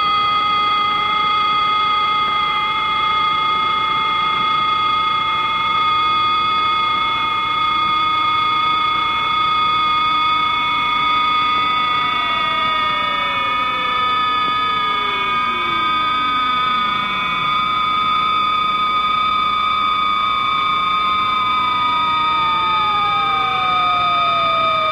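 Electronic sine-wave tones, the slow sine-wave glissando of the film's soundtrack: several steady high pitches held throughout, with fainter tones sliding slowly down in pitch from about ten seconds in and another sliding up in the second half.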